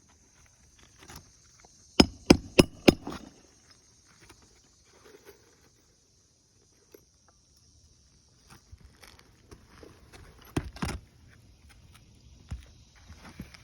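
Hammer blows on asphalt roof shingles during a shingle replacement: a quick run of about five strikes, then a pair of strikes later on, with light scraping and handling between.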